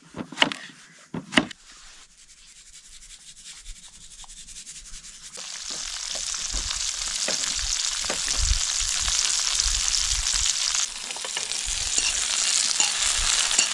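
Two knife strokes through zucchini on a wooden cutting board, then zucchini and red bell pepper pieces sizzling in a frying pan on a portable gas stove. The sizzle grows louder from about five seconds in and stays steady.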